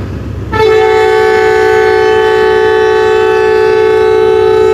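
Pakistan Railways diesel locomotive's air horn sounding one long, steady two-note blast, starting about half a second in.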